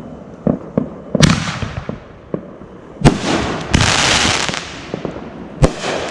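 Fireworks going off: a few small pops, then three sharp bangs about a second in, about three seconds in and near the end. Each bang is followed by a long, fading hiss.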